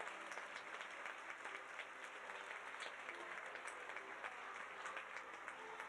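Audience applauding, a steady patter of many hands clapping, fairly faint.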